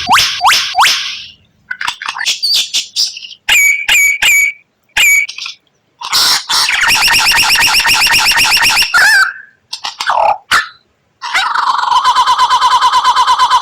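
White-rumped shama (murai batu) singing: a string of short whistled notes, a few of them repeated on one pitch, then a long, fast rattling trill of two to three seconds. After a couple of brief notes, a second fast trill begins about eleven seconds in.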